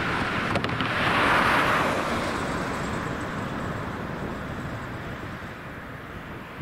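A car drives over the level crossing and passes close by. Its tyre and engine noise swells to a peak about a second in and then fades away. There are two light knocks about half a second in as its wheels cross the rails.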